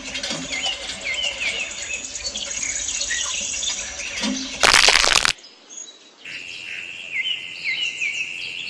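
Birds chirping with many short, repeated chirps. About five seconds in there is a loud, brief rushing burst, then a moment of near quiet before the chirping resumes.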